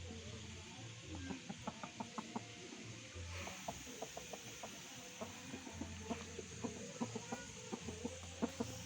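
Rooster clucking softly in runs of short, quick notes, several a second.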